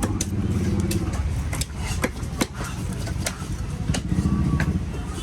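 Sharp, irregular knocks of a cleaver chopping fish on a wooden cutting block, with a motor vehicle engine running close by, its hum swelling twice.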